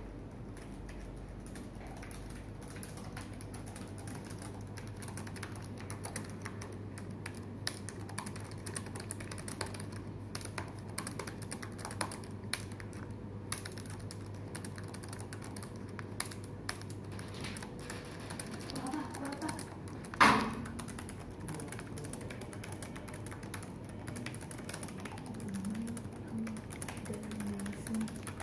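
Fast touch-typing on an HP laptop keyboard: a steady stream of quick key clicks. About twenty seconds in, a single sharp knock rings out, louder than anything else.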